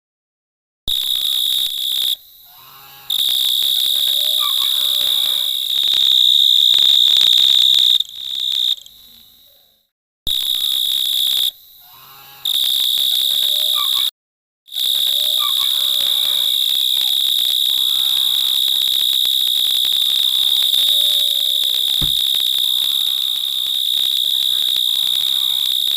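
Insect song: one steady, shrill, high-pitched tone that breaks off abruptly several times into short silences. The same stretch repeats about every nine seconds, as in a looped ringtone, and faint wavering lower sounds run beneath it.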